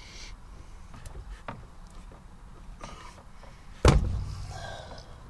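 Light metal clicks of snap ring pliers at the base of a car's gear shifter, then one sudden loud metal clunk with a deep thump about four seconds in as the stock shift lever is pulled free of its housing.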